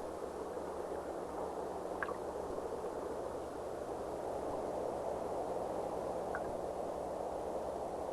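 Steady underwater ambience: an even rushing hiss of water, with a couple of faint clicks.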